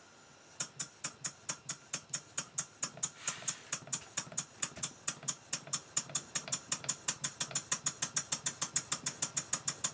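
Rob Roy vertical model steam engine running on compressed air, its exhaust puffing in a sharp, even beat. The beat starts about half a second in at around four puffs a second and steadily quickens to about six or seven a second as the air is opened up.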